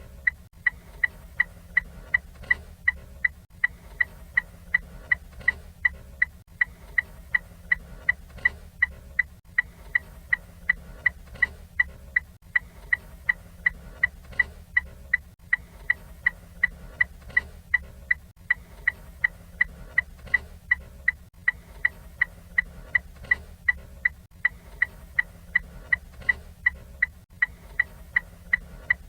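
Ford Fiesta turn-signal indicator ticking steadily, about two crisp ticks a second, each with a short high ring.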